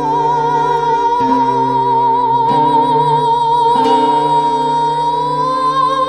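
Chinese-Western chamber ensemble playing a slow passage. A long high melody note with vibrato is held and lifts slightly near the end, over sustained low notes, with plucked-string attacks about every second and a quarter.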